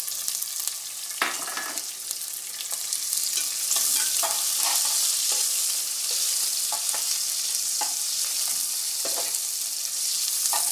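Sliced onions frying in hot mustard oil in a metal pot, sizzling steadily while a metal spoon stirs them, scraping and knocking against the pot now and then. The sizzle gets louder about four seconds in.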